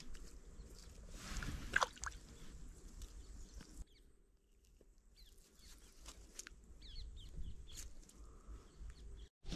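Faint outdoor background with scattered short bird chirps and a few small clicks and rustles. It drops almost to silence for about a second and a half in the middle.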